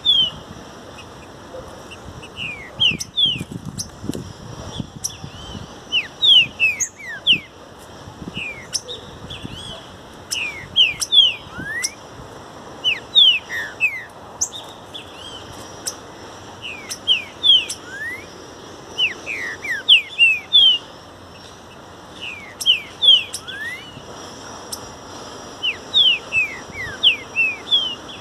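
Green-winged saltator (trinca-ferro) singing: short phrases of quick, sliding whistled notes, repeated every couple of seconds.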